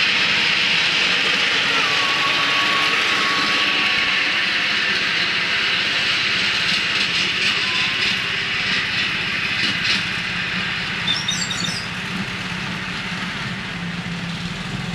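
Miniature railway train, a small locomotive hauling ridable passenger cars, running steadily along the track with a continuous rolling rumble.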